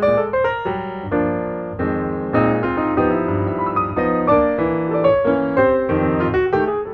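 Background music on piano: a run of quickly struck notes and chords, with some chords held a little longer in the middle.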